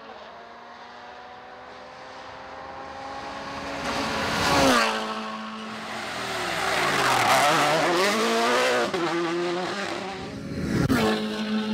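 Rally car engine approaching, its note climbing, then passing close with a sudden drop in pitch a little under five seconds in. It then goes through a stretch of revs rising and falling, with another loud surge near the end.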